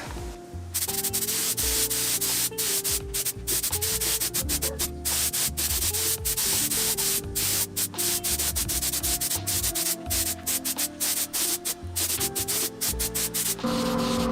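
Spray filler primer hissing from the nozzle in quick repeated bursts with many brief breaks, over background music.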